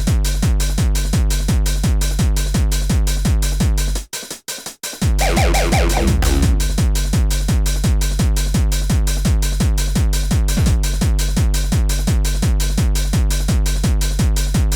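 Electronic dance track programmed on an Akai MPC Live II sampler, with a fast, steady kick-drum beat over a deep bass. About four seconds in the beat drops out for under a second, and a short higher sampled melodic phrase comes in as it returns.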